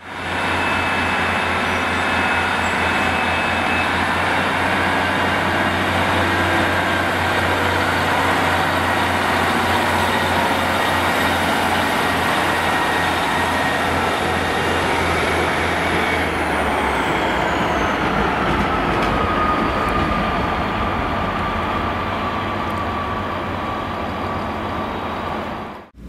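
Diesel multiple-unit train's engine running steadily at the platform. About two-thirds of the way through the low engine note drops away and a slowly falling whine takes over.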